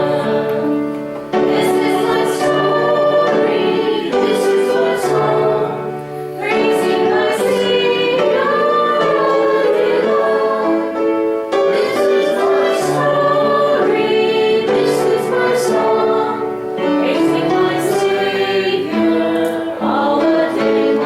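Congregation singing a hymn together, in sustained phrases a few seconds long with short breaks between the lines.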